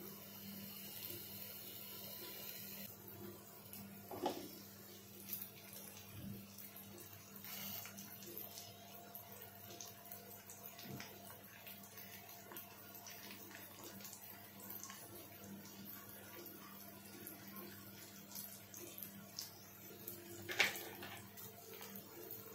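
Faint, steady sizzle of oil as masala-coated elephant foot yam slices shallow-fry in a nonstick pan, with a few sharp clicks, the loudest near the end.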